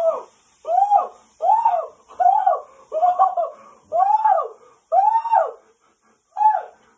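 A high-pitched, voice-like call repeated about eight times. Each call is short and arches up then down in pitch, with a longer pause before the last one.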